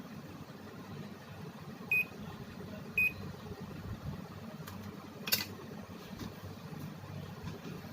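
Daikin air conditioner unit beeping twice, short high beeps about a second apart, over a steady low hum, with a sharp click a few seconds later.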